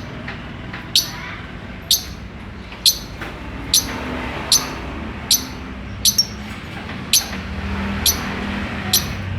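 Lovebird giving short, sharp, high-pitched chirps, about one a second, with two in quick succession a little after the middle.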